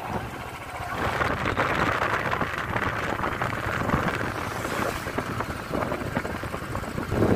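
Motorbike ride noise: steady engine hum with tyre and wind rush, getting louder about a second in.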